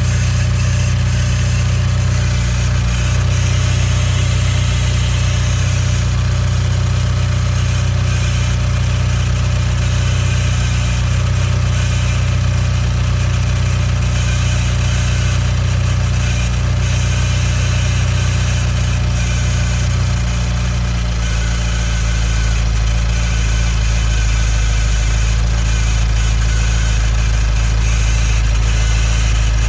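2015 Nissan Juke Nismo RS's 1.6-litre turbocharged four-cylinder idling steadily, with a hissing, static-like noise over the engine note that the owner takes for the known timing chain problem rather than a vacuum leak. The low hum shifts deeper about two-thirds of the way through.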